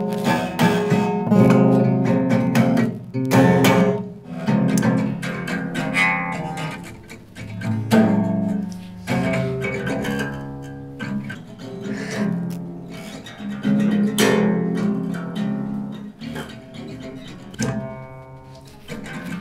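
Acoustic guitar playing chords, plucked and strummed, each chord ringing on after its attack.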